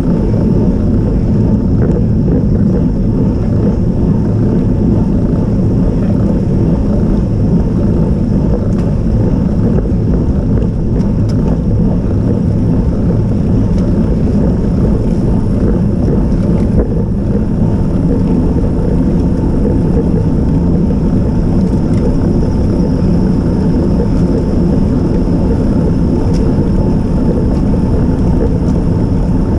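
Steady low rumble of wind and road noise on a bicycle-mounted action camera's microphone as a road bike climbs in a group of riders.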